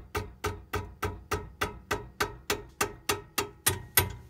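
Rubber mallet striking the handle of a wrench in a steady run of about fifteen blows, three or four a second, each with a short metallic ring, a little louder near the end. The wrench is being hammered to break loose a seized 17 mm brake caliper bracket bolt.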